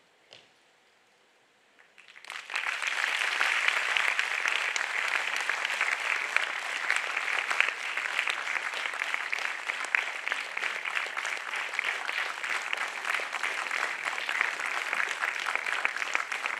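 Audience applauding in an auditorium. It starts about two seconds in after a near-silent pause and then continues steadily.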